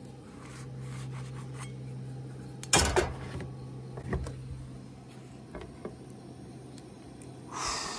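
A metal spatula and frying pan clinking and scraping as a cooked quesadilla is plated, with one sharp clank about three seconds in and a smaller one a second later. A short rustle comes near the end.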